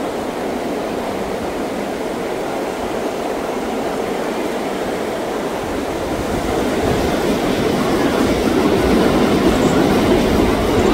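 Heavy rain falling steadily, growing louder about halfway through.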